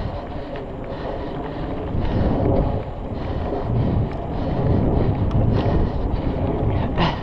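Wind buffeting the microphone over the rumble of mountain bike tyres rolling fast on dry dirt singletrack. Frequent small clicks and rattles come from the bike as it bounces, with a sharper knock near the end.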